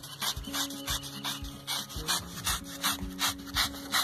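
Knife blades scraping the bristles off a scalded pig's hide, quick repeated rasping strokes about four a second.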